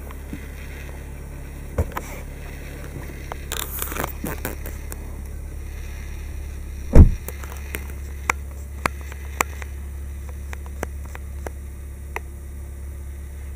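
A 2017 Volkswagen Passat's rear door shutting with a single heavy thump about halfway through, amid rustling and several light clicks of handling in the back seat. A steady low hum runs underneath.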